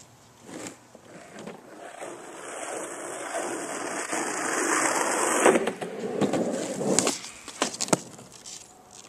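Skateboard wheels rolling, growing steadily louder over a few seconds and cutting off with a sharp clack about five and a half seconds in, then a few more sharp clacks and knocks of the board near the end.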